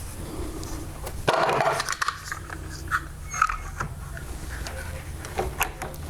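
Workshop handling sounds: a short scrape about a second in, then scattered clicks and knocks of wood and tools being handled, over a steady low hum.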